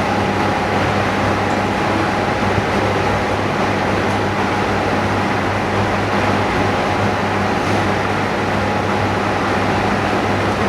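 Steady hum and hiss of running machinery, with a constant low electrical drone and a faint high tone, and no change throughout.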